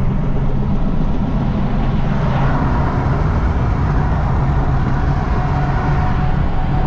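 Pickup truck driving on the road: steady engine hum and road noise.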